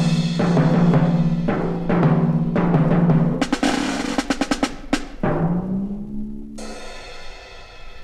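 Short percussion music interlude of pitched drums: repeated low drum strokes, a fast roll around the middle, then a rising drum glide and a bright ringing stroke near the end.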